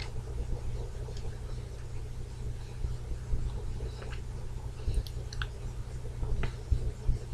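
Faint scratchy rustles and a few light ticks as a makeup brush is swept over the cheek, over a steady low hum.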